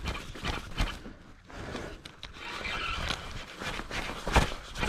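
Spinning fishing reel being wound in on a steady lure retrieve, with rustling and handling knocks; the sharpest knock comes near the end.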